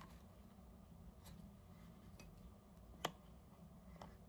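Faint small clicks and taps of a laser sight's parts being handled and pressed against a pistol's frame as it is worked into a groove, with one sharper click about three seconds in.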